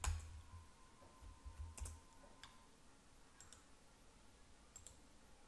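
Scattered faint clicks of computer keys and a mouse, a few separate presses spread over several seconds.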